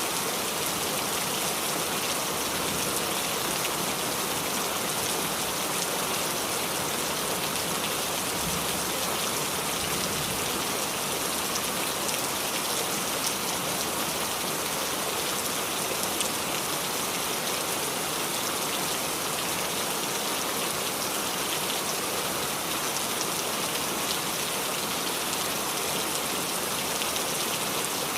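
Steady rain falling on the leaves of a small tree, a constant hiss of dripping with a few louder individual drops standing out.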